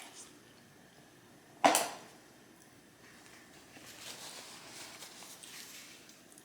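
A takeout food box being put aside: one sharp knock about two seconds in, then faint rustling.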